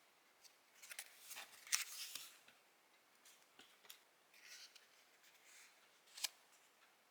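Quiet desk-crafting sounds of diary decorating: paper and stickers rustling with crisp clicks and snips, busiest a second or two in, and one sharp click about six seconds in.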